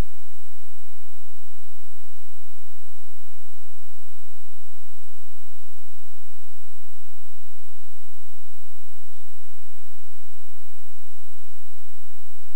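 Steady electrical hum and buzz with several fixed tones over a hiss, unchanging throughout, with no speech.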